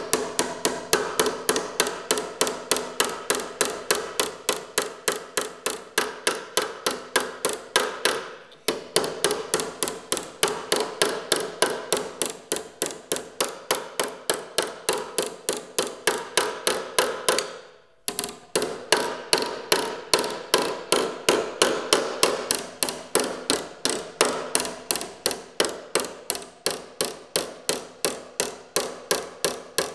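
Small hammer tapping sheet metal in quick light blows, about three a second, tuck shrinking a panel flange. There are short pauses about eight and a half and eighteen seconds in.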